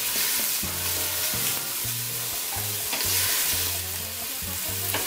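Chicken pieces sizzling in hot oil in a stainless steel pot while being searing, turned and stirred with a wooden spoon. A steady frying hiss runs throughout.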